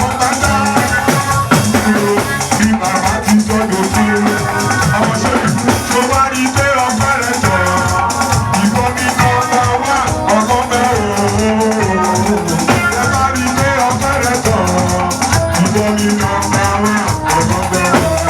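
Music with a steady percussive beat and melodic lines over it.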